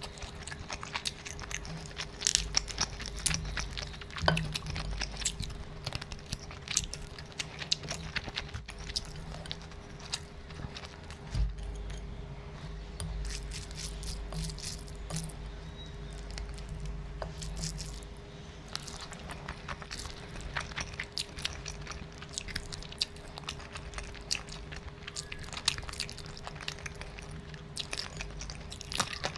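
Close-miked chewing and biting of meat and rice eaten by hand, with irregular crunches and wet clicks, over a faint steady hum.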